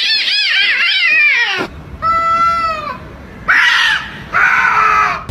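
Cat yowling and meowing: a fast, warbling wail for the first second and a half, then a held meow and two shorter, harsher meows.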